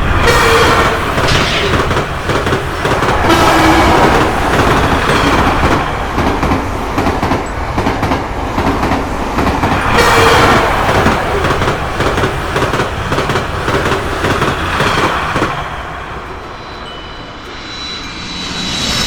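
A train running past at speed, its wheels clattering over the rails, with short train-horn notes sounding a few times. The noise eases off briefly near the end before building again.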